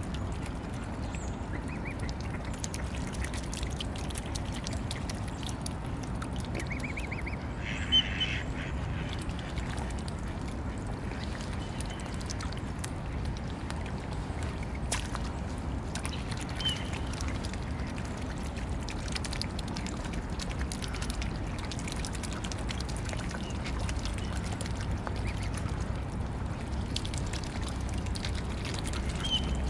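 Mute swans and mallards feeding on floating pellets at the water's edge: steady small dabbling and pecking clicks and water sloshing over a low background rumble. A single loud duck quack about eight seconds in.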